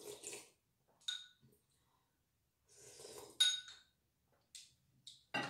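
Metal spoon clinking against a ceramic soup bowl, twice, with a short ring each time: about a second in and again near the middle. Soft sipping from the spoon at the start.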